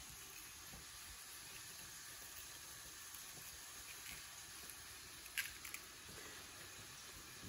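Faint hiss with soft handling noise as raw artichokes are trimmed with a small paring knife and their outer leaves are pulled off; one sharp click, then a couple of softer ones, about five and a half seconds in.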